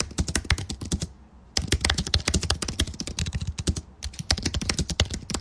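Rapid, dense clicking in three runs, with short pauses about one second in and near the four-second mark.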